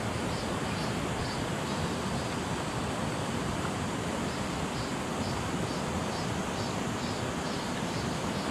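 Steady rushing of a flowing river. Faint high chirps repeat about three times a second in stretches over it.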